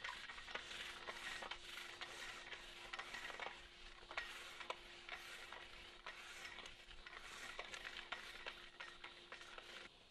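Wire-bristle pool brush on a long pole scrubbing brick pavers, faint scratchy strokes about two a second.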